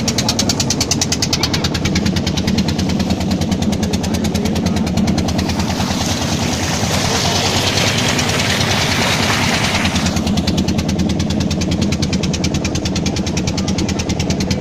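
Boat engine chugging steadily with a fast, even pulse. About six seconds in, the rush of water splashing along the hull joins it for about four seconds, then drops away.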